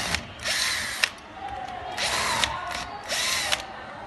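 Cordless drill-driver turning a screw in a metal valve block, running in three short bursts with its motor whine rising and falling each time.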